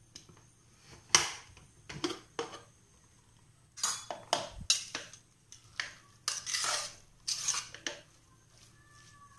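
Aluminium pressure cooker being opened with its pressure already released: a sharp click about a second in and a couple of knocks as the lid is worked off, with no hiss. Then a spoon clinks and scrapes against the pot as the cooked rice and moong dal is stirred.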